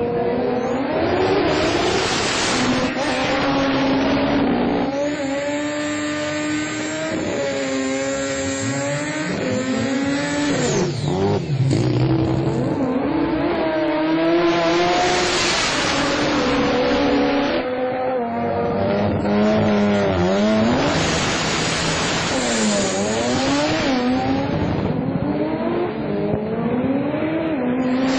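Rotary-engined drag cars running hard: the engine pitch repeatedly climbs and drops as they rev and shift, with several louder surges and quick up-and-down revving in places.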